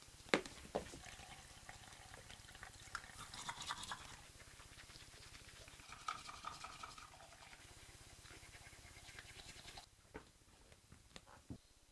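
A few soft footsteps in flip-flops on a wooden floor, then faint scrubbing at a bathroom washbasin, like teeth being brushed. Near the end come a few more soft footsteps.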